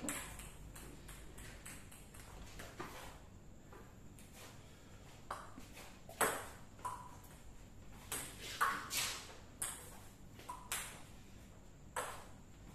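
Table tennis ball clicking off rackets faced with pimpled rubber and off the table, each hit with a short high ping. A few faint taps come early, then from about five seconds in a serve and rally of about a dozen irregularly spaced hits.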